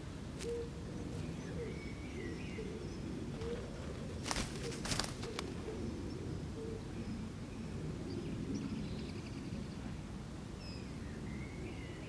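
Outdoor garden ambience: a steady low rumble with wild birds calling faintly in short, gliding notes now and then. A few sharp clicks come about four to five seconds in.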